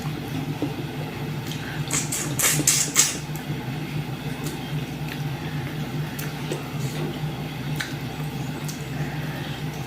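A few short clinks and clatters of a plate and utensils about two to three seconds in, with faint ticks later, over a steady low hum.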